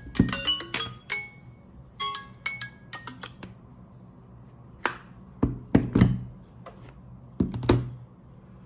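Smartphone alarm or timer tone: a melody of short ringing, chime-like notes that stops about three and a half seconds in. It is followed by several sharp knocks.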